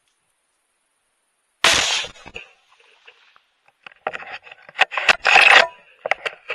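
A single rifle shot about a second and a half in, sudden and loud, dying away within half a second. From about four seconds, sharp clicks and scraping, rubbing handling noise from the rifle.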